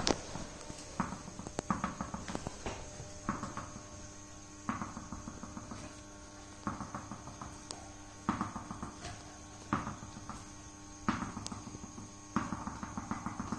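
Golden retriever puppy's paws and claws pattering fast on a hard floor in short bursts of quick taps, every second or two, as it plays with a ball. There is a sharp knock at the very start.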